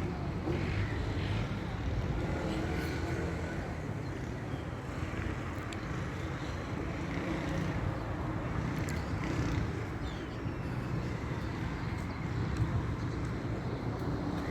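Steady road-traffic and vehicle rumble, with faint voices in the background.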